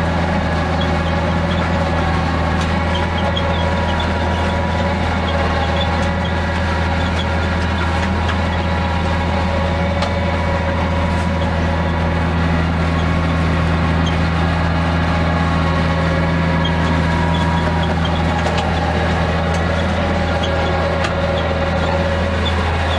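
Case IH CVX195 tractor's diesel engine running steadily under load, heard from inside the cab as it drives a Kuhn HR3003 rotary power harrow across the field. An even, unchanging drone.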